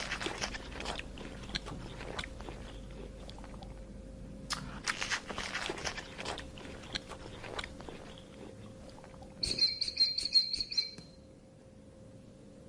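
An animal chewing: crunchy, clicking bites in bouts with short pauses between them. About three quarters of the way through comes a brief high squeak with clicks, lasting about a second and a half, the loudest moment.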